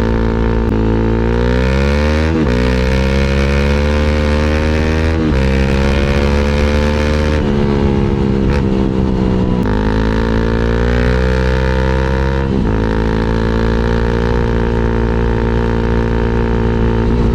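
Honda CRF300L's single-cylinder four-stroke engine running under way through a freshly repacked budget eBay aftermarket muffler. The engine note climbs and drops several times as the bike is throttled up, shifted and eased off. The repack has left the exhaust about as loud as before.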